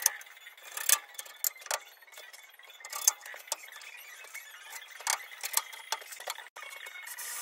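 A run of sharp clicks and knocks from a bar clamp and cordless drill/drivers being handled and set down on the wooden router table frame, the loudest about a second in and at about three and five seconds in.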